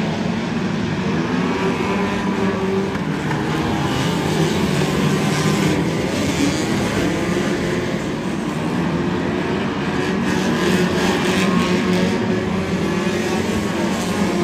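Several 1600cc banger race cars' engines revving hard at once as the pack races, the pitches rising and falling against each other. A few short knocks come in the middle and later part.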